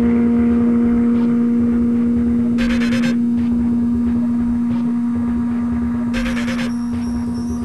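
A steady low droning hum that slowly fades, with two short bright hissing swells about three and a half seconds apart.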